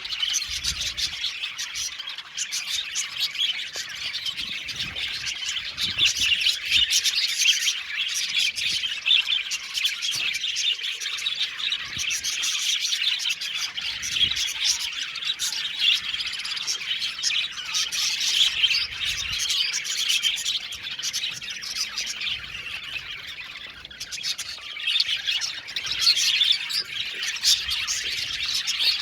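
A flock of budgerigars chirping and warbling at once, a dense, continuous chatter with many rapid overlapping calls.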